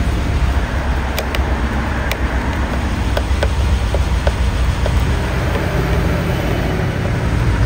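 Steady low rumble of street traffic, with a few sharp clicks and ticks as a screwdriver works at the metal and plastic fittings of a Classic Mini dashboard panel, mostly in the first half.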